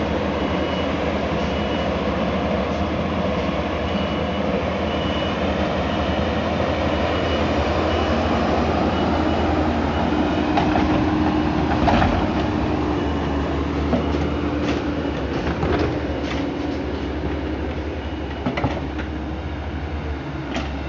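A large engine running steadily with a deep rumble and a held hum, joined by scattered sharp metallic clanks and knocks from about ten seconds in.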